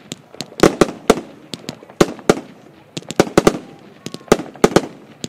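Evolution Fireworks 'Coconut Groove' 36-shot consumer fireworks cake firing in rapid succession: an irregular string of sharp bangs, about four a second, each with a short echo.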